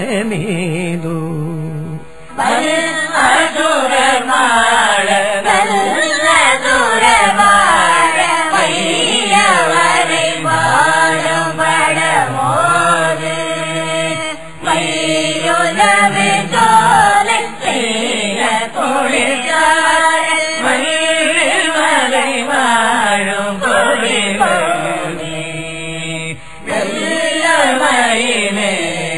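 Carnatic-style Tamil devotional singing: a voice holding long, sliding melodic phrases over a steady low drone, with short breaks between phrases about two seconds in, halfway through and near the end.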